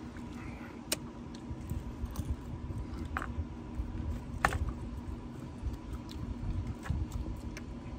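Eating sounds: crisp fried lumpia being pulled apart on a paper plate and chewed, with a few scattered sharp clicks and crackles over a low steady rumble.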